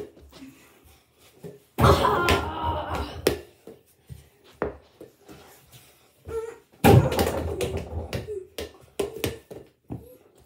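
A mini basketball slamming into an over-the-door hoop twice, about five seconds apart, each hit setting the hoop and door rattling for a second or so. Lighter thumps of the ball and footsteps on the floor come in between.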